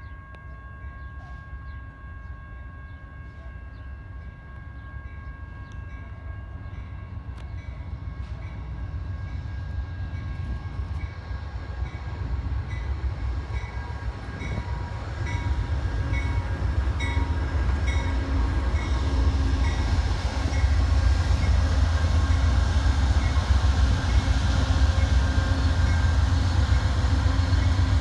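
Train approaching, its low rumble growing steadily louder.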